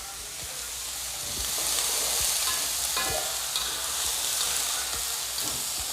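Freshly added yardlong beans sizzling in hot oil with garlic and dried chillies while a spatula stirs them, knocking against the pan a few times. The sizzle grows louder about a second and a half in.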